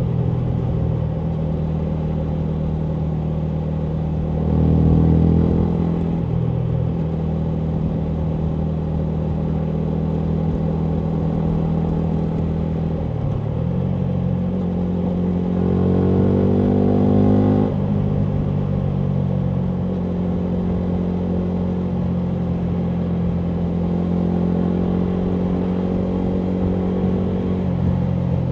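2019 Yamaha MT125's single-cylinder four-stroke engine through a full Akrapovic exhaust, under way at mostly steady revs. There is a short burst of throttle about five seconds in, and a rising rev from around fifteen seconds that drops away suddenly near eighteen seconds.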